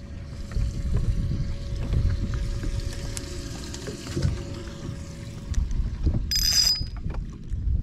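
Low wind rumble on the microphone and handling noise aboard a small fishing boat. A faint steady hum stops about six seconds in, and a brief high-pitched jingle follows just after.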